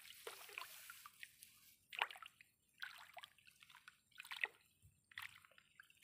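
Hands working in the muddy water of a flooded rice paddy while pulling weeds: faint, irregular small splashes and sloshes of water.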